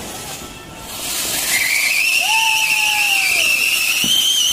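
Anar (flower-pot) firecracker fountain spraying sparks with a loud hiss that swells over the first second or so. A high whistle rises in at about a second and a half in and holds steady, while a second, lower whistle briefly arcs and falls away.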